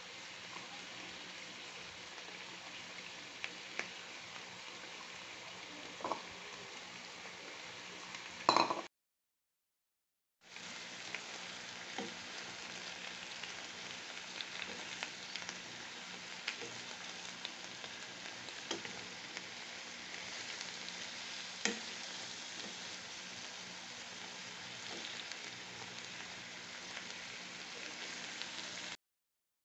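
Vegetables (napa cabbage, carrots, baby corn) sizzling in a nonstick wok with a steady hiss, with scattered light knocks of a wooden spatula against the pan as they are stir-fried. The sound cuts out for a second or two about a third of the way in and again just before the end.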